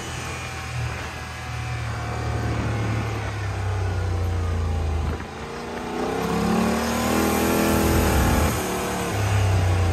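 Turbocharged Yamaha RMAX 1000's twin-cylinder engine revving under throttle while driving. It backs off briefly about five seconds in, then climbs in pitch again and falls back near the end as the machine slows.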